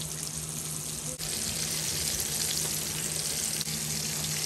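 Breaded flounder fillets frying in hot oil in a cast iron skillet: a steady, dense crackling sizzle, with one small click about a second in.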